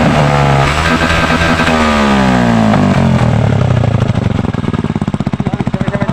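Honda TMX125 single-cylinder engine through a homemade open exhaust pipe, revved up and let fall a few times, then settling about four seconds in to an idle with a plainly pulsing exhaust beat.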